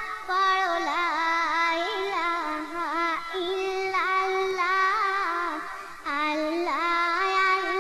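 A solo female voice singing a Bengali gojol (Islamic devotional song): one ornamented melody with quick wavering turns, breaking briefly for breath about six seconds in.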